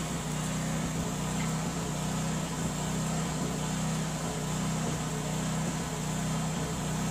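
Electric air blower on a coal forge running with a steady, even hum.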